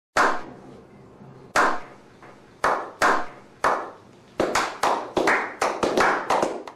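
A slow clap: single hand claps with an echoing tail, about a second apart at first. More people join in and the clapping speeds up into quick, overlapping claps.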